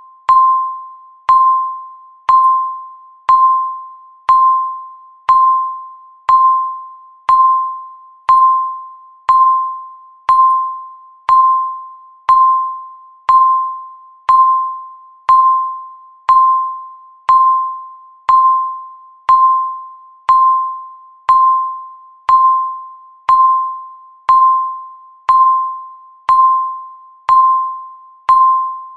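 Countdown timer's tick sound: a sharp electronic tick that rings on as a single mid-pitched tone and fades away, repeating steadily once every second.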